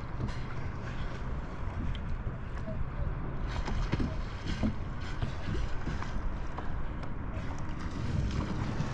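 Wind rumbling on the microphone over water lapping and splashing lightly around a kayak on open sea, with small scattered splashes.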